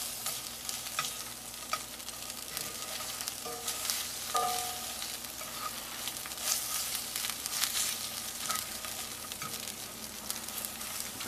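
Creamed spinach sizzling in a cast-iron skillet while a metal fork stirs and presses it, the tines clicking and scraping against the pan now and then.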